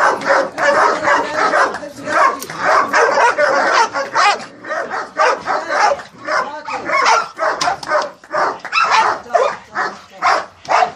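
Chained guard dog barking in a rapid, unbroken series, two or three barks a second, as it lunges on its chain.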